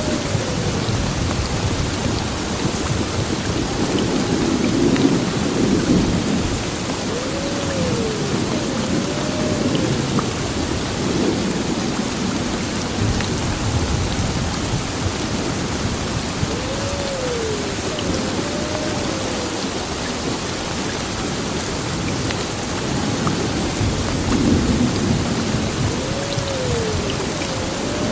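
Heavy rain falling steadily with low rolling thunder, the rumble swelling about four seconds in and again near the end.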